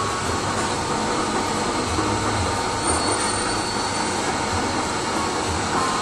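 Engine lathe running steadily: a motor and gear hum with thin high whining tones over a constant mechanical rush.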